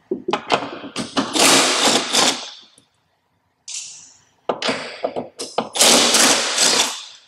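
3/8-inch impact wrench with a 13 mm socket hammering, loosening the nuts that hold the hood to its hinge. One run of about two and a half seconds, a short burst near the middle, then another run of nearly three seconds.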